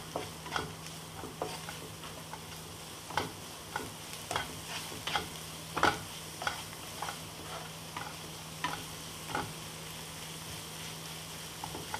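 Onion-tomato masala frying in a non-stick pan, a steady sizzle under a wooden spatula scraping and knocking against the pan about once or twice a second. The strokes thin out in the last couple of seconds.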